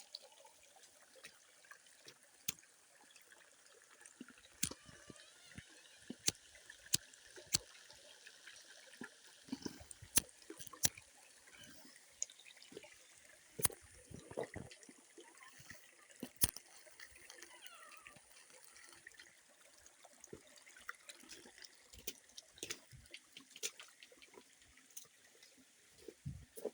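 A small spring stream trickling over rocks, with many short sharp clicks and knocks scattered through it.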